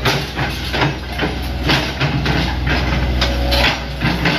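Hitachi ZX100 excavator's diesel engine running with a steady low drone, with irregular knocks and clatter over it.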